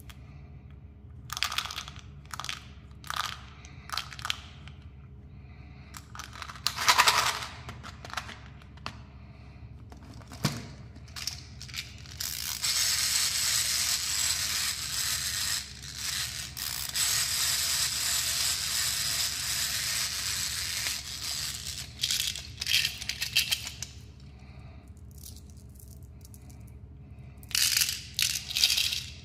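Small hard candies and gum pellets clicking and rattling against hard plastic candy-toy packaging as they are handled, with a long stretch of continuous rattling in the middle.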